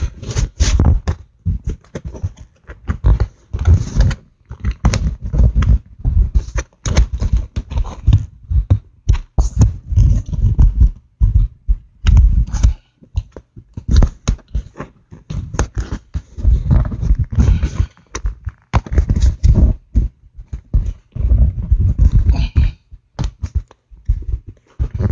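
Close, irregular rubbing, bumping and knocking right against the phone's microphone, in uneven bursts, as wiring is pushed and tucked into the car's rear-seat trim and upholstery by hand.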